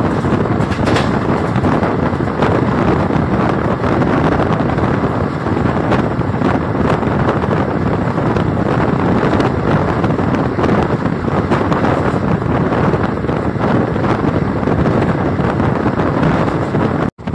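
Passenger train running at speed, heard from an open coach window: a steady rush of wind buffeting the microphone over the rumble of the coach running on the track. The sound cuts out abruptly for a moment near the end.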